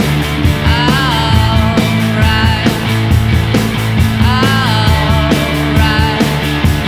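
Surf-rock band playing with drum kit, bass and electric guitar, without vocals. Guitar notes bend up and back down about a second in and again about four seconds in.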